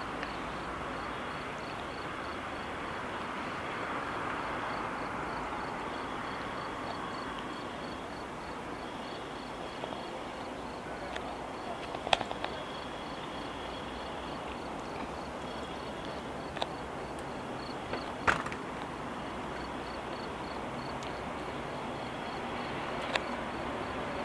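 Steady outdoor background hiss with a faint, regular high-pitched ticking about three times a second. A few short sharp clicks and knocks from the phone being handled, the loudest near the middle.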